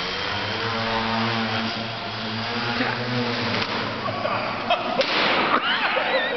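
Electric motor and propeller of an Extra 260 foam RC plane buzzing in flight, the pitch shifting slightly, until about three and a half seconds in. About five seconds in comes a loud, sharp whack as the foam plane is slammed down onto the floor.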